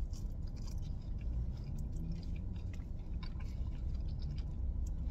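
A person biting into and chewing a slice of thin-crust tavern-style pizza: soft scattered crunches and mouth clicks over a steady low hum.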